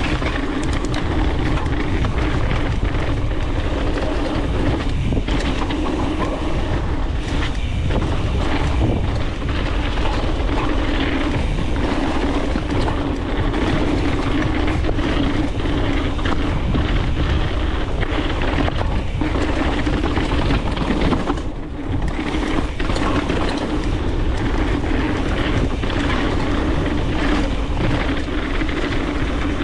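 Mountain bike descending a dirt trail at speed: wind rushing over the camera microphone and tyres rumbling and rattling over the ground, with a steady hum underneath. The noise drops briefly about three-quarters of the way through.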